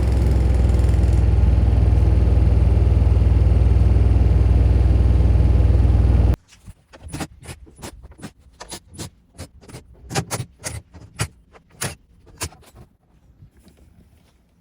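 Kubota D722 three-cylinder diesel in a Denyo TLW-300 welder running steadily, cut off suddenly about six seconds in. Then a run of sharp clicks and clatters for several seconds.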